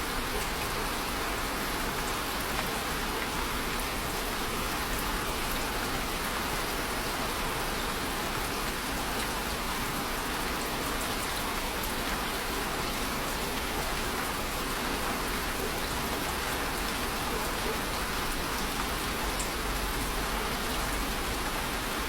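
Steady rain falling on a hard surface, an even hiss with faint scattered drop ticks.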